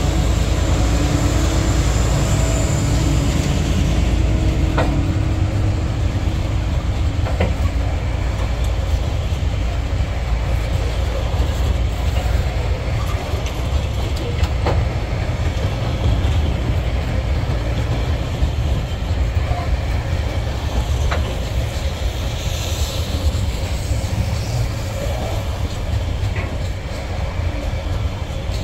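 A long freight train passing as it climbs a grade. A trailing diesel-electric locomotive's engine note fades out within the first few seconds. Then loaded coal hoppers and container wagons roll by with a steady rumble, their wheels clicking over rail joints now and then.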